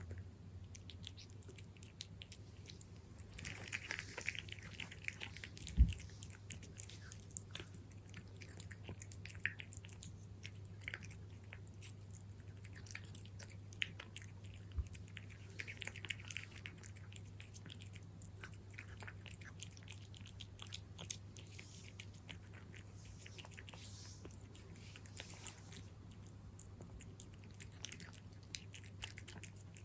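A cat chewing and crunching its food with many small, quick clicks of biting, over a steady low hum. One sharp thump about six seconds in.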